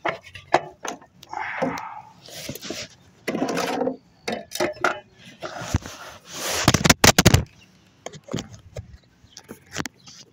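Handling noise from a phone held against clothing: fabric rubbing and scraping over the microphone, with scattered clicks and a loud cluster of knocks about two-thirds of the way through.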